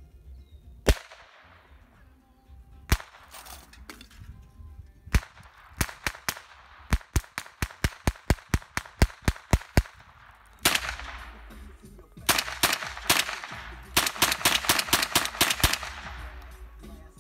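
Rifle shots: single shots about a second in, at three seconds and at five seconds. Then a rapid string at about five shots a second, followed by more rapid strings near the end.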